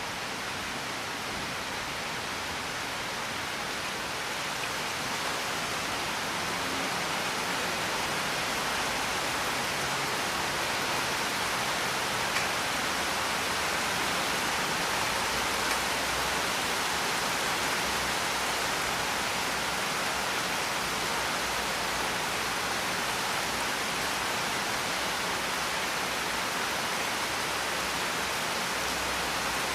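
Steady rainfall, an even hiss of rain with no music or thunder, swelling slightly over the first several seconds.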